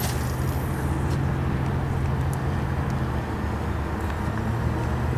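A spinning rod being cast, the line hissing briefly off the reel at the start, over a steady low mechanical hum.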